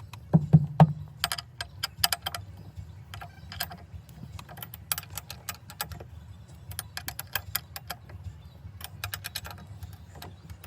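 Runs of light, sharp metallic clicks and clinks from hand tools and hardware being worked on the shift box parts, over a low steady hum.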